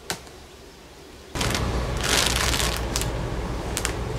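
A beehive being opened: a sharp click of the hive tool prying at the lid, then the rustle and crinkle of the fabric cover being peeled off the frames, with a few more small clicks. About a second and a half in, a steady low rumble sets in and stays.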